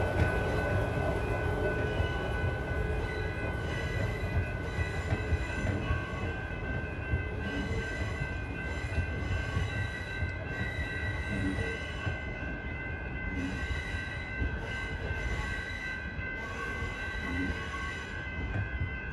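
Train passing at close range: a steady rumble of wheels on rail with several high-pitched steady tones held over it, and from about four seconds in a run of repeated clattering as the wheels go by.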